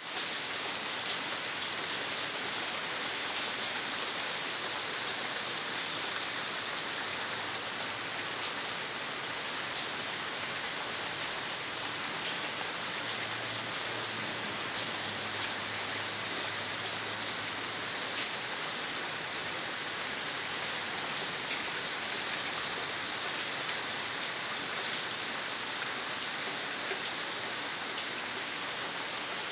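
Steady rain falling on a pond and a wooden deck, an even, unbroken hiss of drops.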